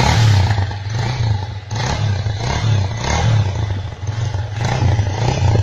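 2003 Bajaj Pulsar 150's single-cylinder four-stroke engine running through its stock, unmodified exhaust, just after starting, with the throttle blipped a couple of times.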